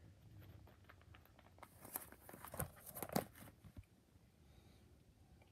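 Plastic binder sleeve page being turned: a crinkling rustle of about two seconds, starting near the middle, with a few sharp crackles.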